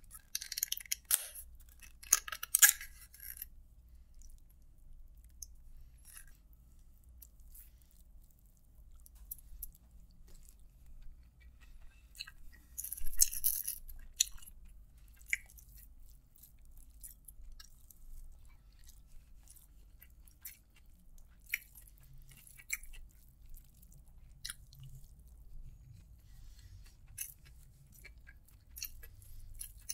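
Close-miked fingers mixing biryani rice by hand, making soft sticky squishes and small clicks. There are louder bursts of plastic crinkling near the start, from a small plastic gravy cup being lidded, and again about 13 seconds in.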